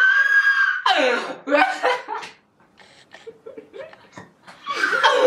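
A young man and woman laughing hard together: a high-pitched squeal of laughter at the start, then bursts of giggling that die down to quiet breathy giggles, before loud laughter comes back near the end.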